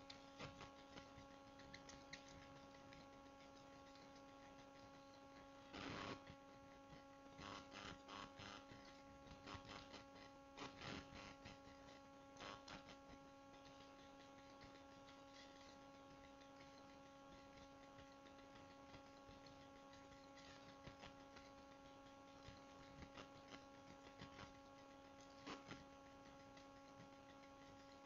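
Near silence: a faint steady electrical hum in the recording, with a few soft clicks now and then.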